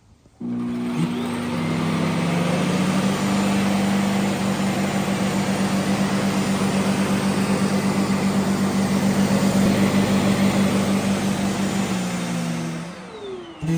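Shark PowerDetect NeverTouch Pro robot vacuum system's suction motor: it starts suddenly and runs loud and steady with a low hum for about twelve seconds, then winds down with a falling whine near the end.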